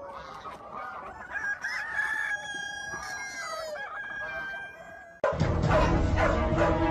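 A flock of chickens clucking, with roosters crowing in long drawn-out calls. About five seconds in, it cuts off suddenly and loud music begins.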